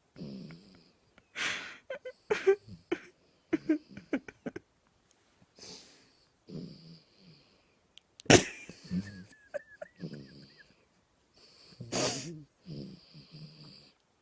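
Small dog snoring in its sleep: irregular wheezing, snuffling breaths with a few sharp, louder bursts, the loudest about eight seconds in.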